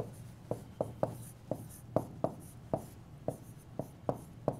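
Pen tapping and scratching on the surface of an interactive display screen while writing: a run of sharp, uneven taps, about three a second.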